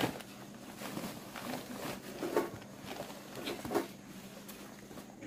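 Irregular rustling with a few light knocks, loudest about halfway through.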